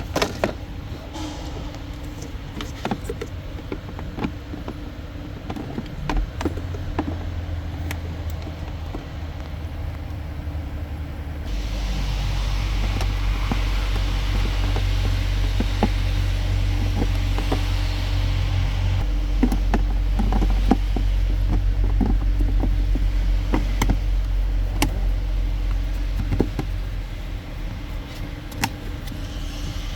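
Clicks and knocks of a plastic trim cover being handled and refitted over the cabin air filter, over a steady low hum. About twelve seconds in, a rushing hiss like air moving joins, stopping about seven seconds later.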